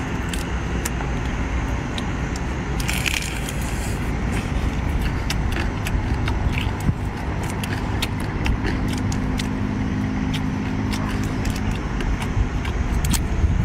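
Cooked crab being broken apart by hand and eaten: many short cracks and crunches of shell with eating noises, over a steady low rumble.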